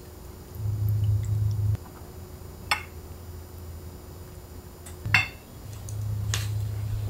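Kitchenware clinking twice against ceramic serving dishes while side dishes are served out, each a short sharp clink with a brief ring. A low hum comes in twice, about half a second in and again near the end.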